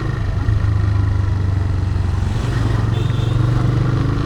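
TVS Raider 125 motorcycle's single-cylinder engine running at a steady speed under way.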